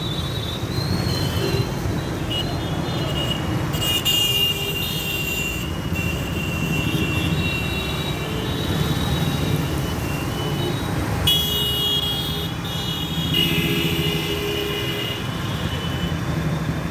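Busy city street traffic: a steady rumble of engines, with vehicle horns honking in several spells, one about four seconds in and a longer run from about eleven seconds on.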